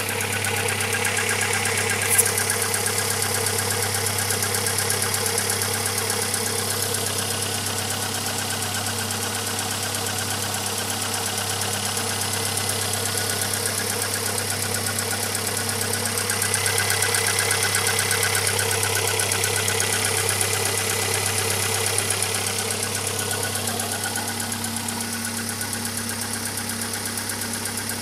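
Alfa Romeo 146 Twin Spark four-cylinder engine running steadily, with a fast, even ticking running through it: the strange noise the owner is trying to track down. One sharp click about two seconds in.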